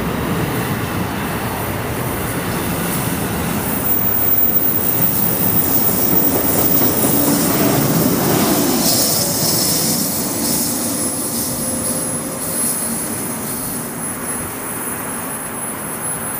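A train running past on the tracks, its wheels and cars rumbling, loudest about halfway through and fading toward the end, with a thin high wheel squeal in the second half.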